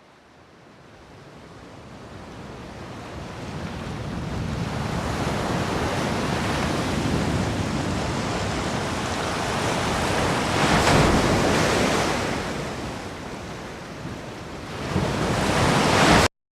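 A rushing roar like surf and wind that swells up from nothing, grows loud, dips and surges again, then cuts off abruptly into dead silence.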